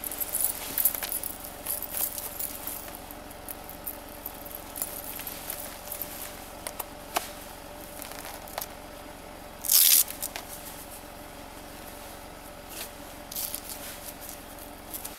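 A Hillsound Trail Crampon Ultra being pulled on over a boot: scattered clicks and clinks of its stainless steel spikes and chains, with rustling of the rubber harness and clothing as it is stretched into place. One brief, louder rustle about ten seconds in.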